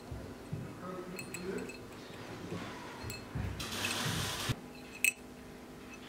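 Light clinks and taps of a small steel scabbard fitting and its ring being handled, with a short scraping rustle a little after three seconds and a sharper metallic clink about five seconds in.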